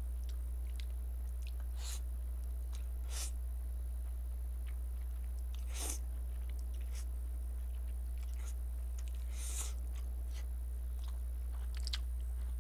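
Close-miked chewing of Chapagetti black-bean instant noodles: scattered wet mouth clicks and smacks, a few of them louder.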